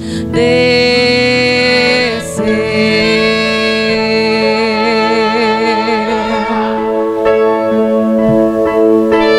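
A woman singing a worship song into a microphone, holding one long note with vibrato for about six seconds over instrumental accompaniment, which carries on alone near the end.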